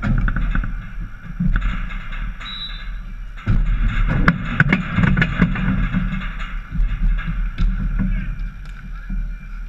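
Wind rumbling on an action camera's microphone, with sharp clacks of dek hockey sticks and ball on the plastic tile court, most of them in a quick run about halfway through.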